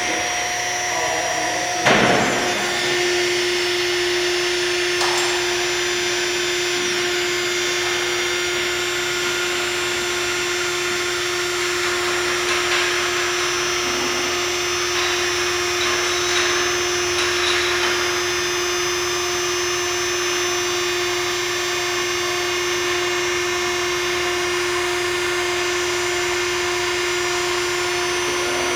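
Motor-driven machinery running with a steady whir. A sharp clunk comes about two seconds in, and right after it a steady hum sets in and holds.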